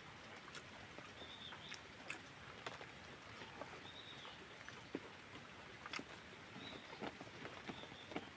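Close-miked chewing and lip-smacking while eating a handful of rice and pork: irregular wet smacks and clicks.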